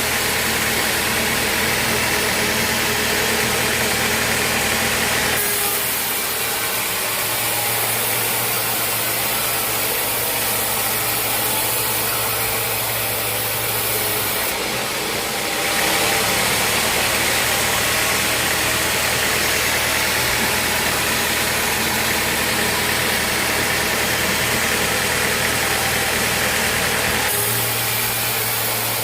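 Sawmill machinery running steadily with a low engine hum and a high hiss. The sound changes abruptly three or four times.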